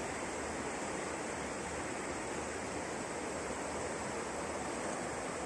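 Mountain river rushing over rocks, a steady, unbroken water noise.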